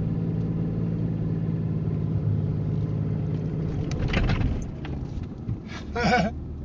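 Diesel pickup truck engine running steadily. About four seconds in there is a brief burst of noise and the engine sound drops away, and a short voice sound comes near the end.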